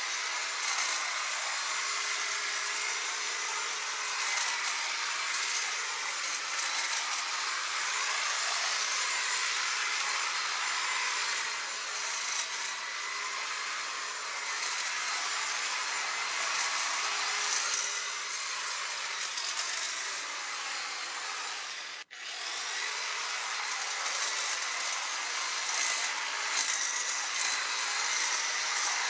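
Electric hedge clippers running steadily as they trim a hedge, with a faint steady high whine under the cutting noise. The sound cuts out for an instant about two-thirds of the way through.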